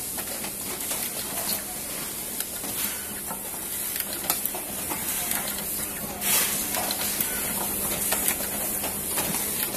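Two-head automatic screwdriver machine working: a steady hum and hiss with scattered sharp clicks, and a brief hissing burst about six seconds in.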